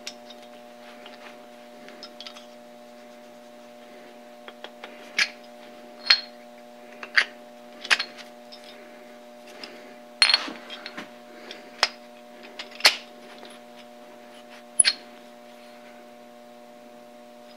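Steel parts of a Brown & Sharpe dividing head's dog driver clinking and clicking against each other and the head as they are handled and fitted by hand: a dozen or so sharp metal taps at irregular intervals, over a steady low hum.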